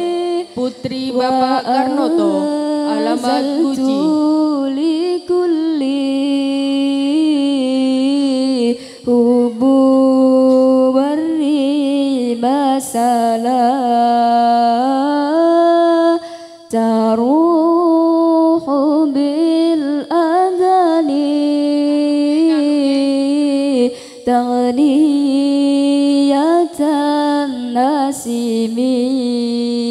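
A woman singing an Arabic devotional song solo, in long melismatic phrases with held, wavering notes and short breaks between them.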